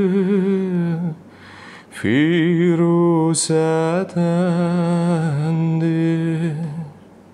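A man singing a cappella in a slow Azerbaijani song, holding long notes with vibrato and small ornaments. A short breath pause comes about a second in, then a long held, ornamented phrase that fades out near the end.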